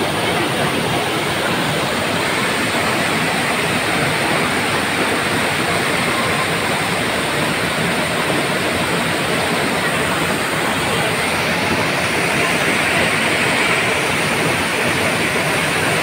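Loud, steady rush of white water as a small cascade pours over boulders close by, with a tall waterfall behind.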